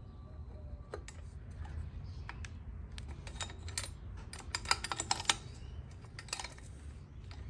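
A metal hand tool working on a small two-stroke engine's cylinder: a scatter of sharp metallic clicks and taps, quickening into a dense run of clicks about halfway through.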